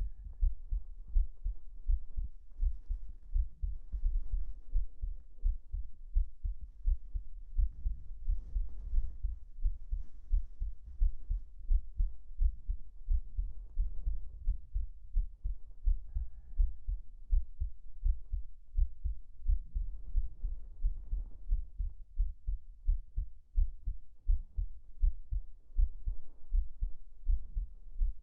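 A person's heartbeat recorded close up: a steady, even train of low, soft thumps. At times soft rustling of bedding and clothing rises over it.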